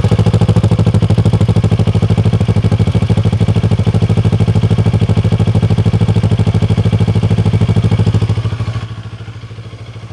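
CFMoto MT650's 649 cc parallel-twin engine idling just after start-up through its underbelly exhaust, a loud, steady 'dabadabada' exhaust beat. Near the end the sound drops to a much lower level.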